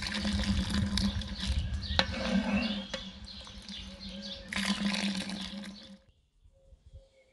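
Birds chirping over a dense noise full of sharp clicks and crackles. It cuts off abruptly about six seconds in.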